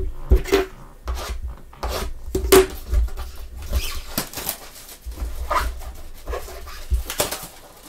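Gloved hands handling a cardboard trading-card blaster box, with irregular rustling, rubbing and light knocks as it is picked up and turned over.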